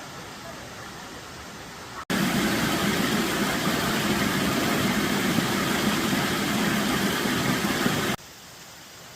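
Mountain stream water rushing steadily. About two seconds in it cuts abruptly to a much louder, closer rush of water, which cuts back to a quieter rush about a second before the end.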